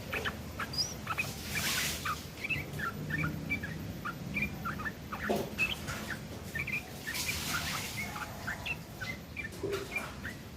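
Yellow-vented bulbul (trucukan) singing a rough, chattering song of rapid short chirps, filled with phrases copied from a long-tailed shrike. Two brief hissing bursts come about two seconds in and about seven seconds in.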